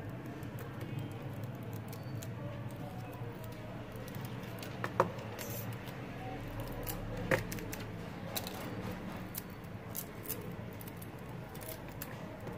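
Scattered small clicks and scrapes of a cutting tool trimming excess tape from a phone's display panel, with two sharper metallic ticks about five and seven seconds in.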